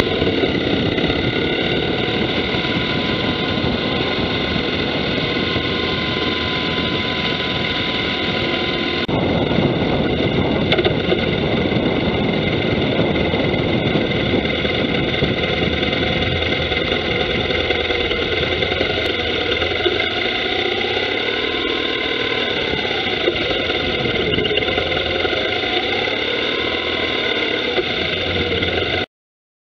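Background music: a rock track with heavily distorted electric guitar, starting and stopping abruptly.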